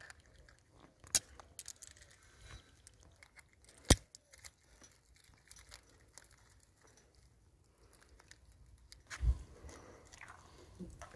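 Pliers cracking a blue crab's claws and shell: two sharp cracks about one and four seconds in, with scattered small clicks between them, and a low thump near the end.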